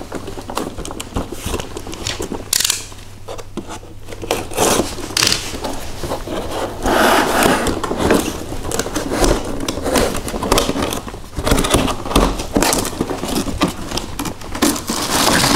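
Cardboard packaging scraping and rustling while a packaged RC crawler is lifted, turned over and pulled from its box insert, with irregular knocks and clatters.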